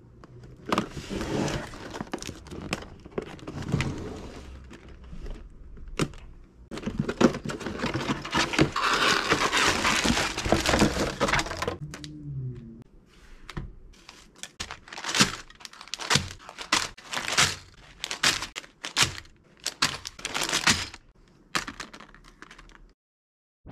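Sealed plastic bags of LEGO Technic pieces crinkling and rustling as they are handled, dense for several seconds at a time. In the second half, a run of short, separate crinkles and knocks, about two a second, as the bags are set down one by one.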